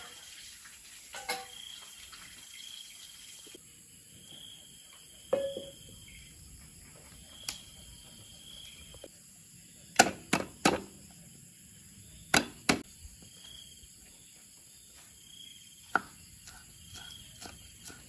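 Crickets and other insects chirping steadily, with short repeated chirps at one pitch, while sharp knocks and clicks come now and then: a quick group of three about halfway through and a pair a couple of seconds later are the loudest.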